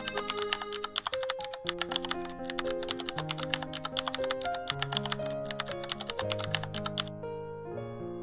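Rapid typing sound effect, a dense run of keyboard-like clicks, over gentle background music with held notes. The clicking stops about a second before the end while the music carries on.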